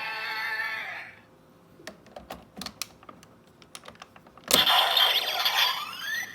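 Kamen Rider Zero-One transformation belt toy: its electronic sound effect fades out about a second in, followed by a series of sharp plastic clicks as the toy is handled. About four and a half seconds in, a loud burst of electronic sound effects starts, with tones sliding upward.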